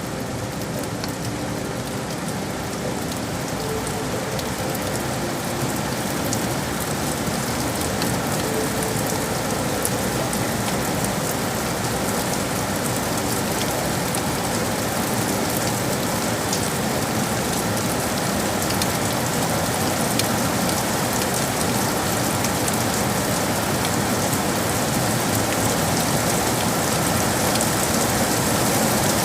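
Steady rain falling, a dense even hiss with many individual drops ticking close by, slowly growing a little louder.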